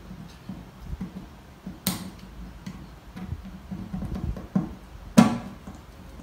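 12-string acoustic guitar being restrung at the bridge: handling noise from the strings and bridge pins, with small knocks and rattles. Two sharp clicks stand out, about two seconds in and near the end; the second, the loudest, leaves a brief ringing of the strings.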